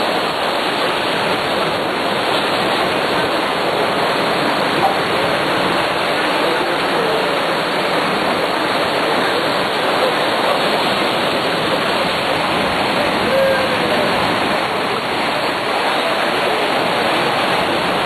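Steady, loud rushing noise, even throughout.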